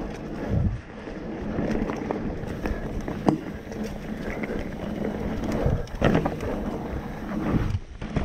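Mountain bike rolling over a dirt trail: a steady rumble of tyres and rattling bike, with sharp knocks over bumps about three and six seconds in, and wind buffeting the microphone.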